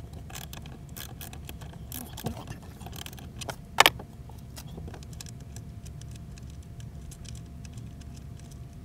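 Small clicks and light metallic rattles of wiring and terminal hardware being handled at a battery-monitor shunt, with one sharp, louder click about four seconds in. A steady low hum runs underneath.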